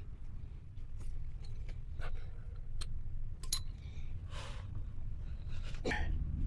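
Scattered light clicks, taps and brief scrapes of hands working PVC fittings and a PVC cement can with its dauber, over a steady low rumble.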